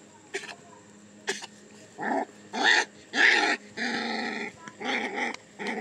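Two puppies growling and yipping as they wrestle. After a quieter start there is a string of short growls from about two seconds in, with one longer growl near the middle.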